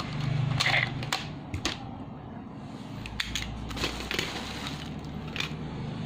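Plastic clicks and clacks from handling a DX Gaburevolver toy gun, a scattered run of sharp snaps over a low steady hum.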